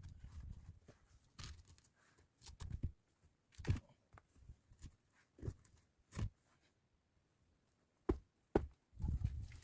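A series of irregular knocks and thuds, about eight of them with quiet gaps between, and a quiet stretch about seven seconds in.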